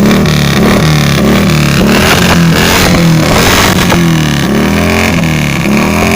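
A motor engine revved over and over in quick blips, its pitch dipping and rising about twice a second.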